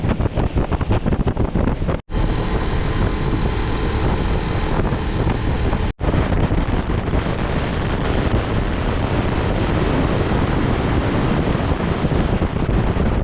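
Loud wind buffeting the microphone on a motorboat under way, over the steady drone of its motor. The sound drops out for an instant twice.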